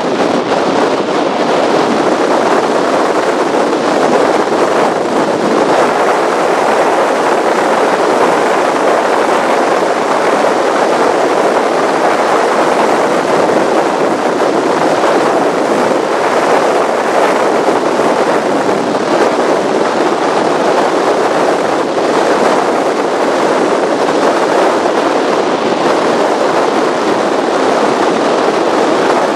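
Speedboat running at speed: a loud, steady rush of wind buffeting the microphone and water over the hull, with the boat's engine running underneath.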